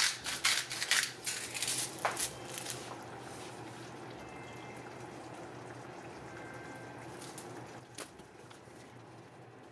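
Spice grinder twisted over the pot, grinding black salt in a quick run of sharp clicks that stops about three seconds in. Then comes a quieter steady sound of the curry simmering.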